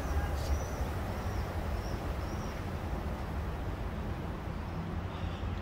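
Outdoor park ambience: a steady low rumble with a few short, high bird chirps in the first couple of seconds.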